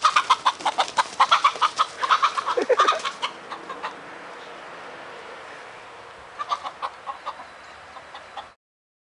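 Chicken squawking and clucking in alarm while being chased by a dog: a fast run of sharp calls for about three seconds, then quieter, with a second short burst of clucks later. The sound cuts off abruptly shortly before the end.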